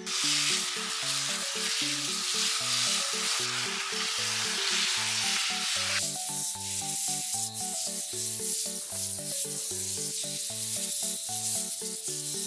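Garden hose spray nozzle hissing as it showers water onto the soil of potted plants; about six seconds in the spray sound turns thinner and higher. Background music with a repeating melody plays underneath.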